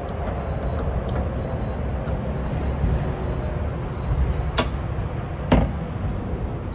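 A person climbing into a pickup truck's cab through the open door: two sharp knocks about four and a half and five and a half seconds in, the second the loudest, over a steady low rumble.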